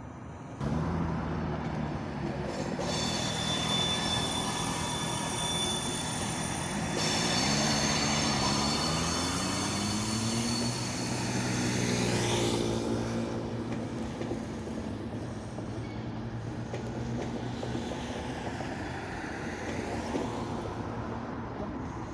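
TGV Duplex double-deck train rolling past close by. High steady squealing tones sound for about four seconds, then a whine climbs in pitch, and a steady rolling noise follows.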